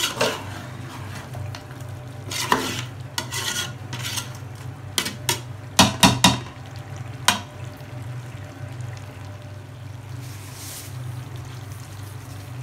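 Chicken pieces in masala being stirred in a large aluminium pot, the spatula scraping and knocking against the pot, with several sharp knocks between about two and seven seconds in. A steady low hum runs underneath.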